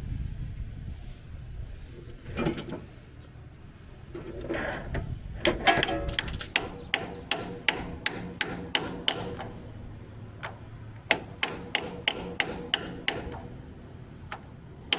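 Hammer tapping a socket that serves as a seal driver, seating a new input shaft seal in a power steering gearbox. Two runs of quick, sharp metal taps, about three a second, with a short pause between them.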